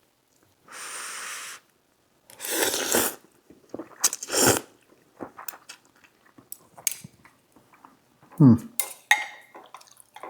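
Eating hot saimin noodles: a steady blow of breath for about a second to cool them, then two noisy slurps, with small utensil clicks against the bowl in between.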